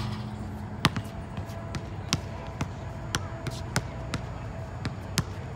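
Basketball being dribbled on an outdoor concrete court: sharp, irregular bounces about twice a second.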